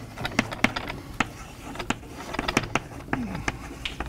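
Chalk tapping and scraping on a blackboard while writing: an irregular run of sharp clicks.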